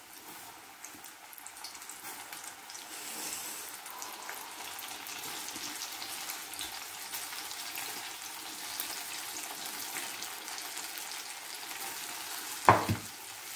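Chicken pieces deep-frying in hot oil in a pan: a steady sizzle that builds over the first few seconds. Near the end a single sudden loud knock cuts through the sizzle.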